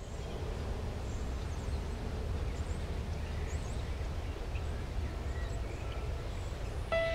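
Steady outdoor ambience: a low rumble of wind with a few faint bird chirps. Music begins near the end.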